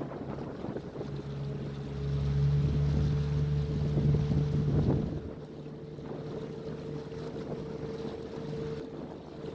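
Boat engine running steadily with a constant hum, and wind rumbling on the microphone. The sound grows louder about two seconds in and drops back about three seconds later.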